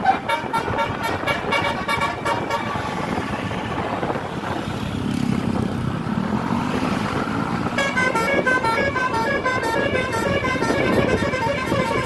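Bus telolet horns, sets of multi-tone air horns, playing their quick stepping 'telolet' melody. The melody breaks off about three seconds in, leaving bus engine and road noise, and starts again near eight seconds.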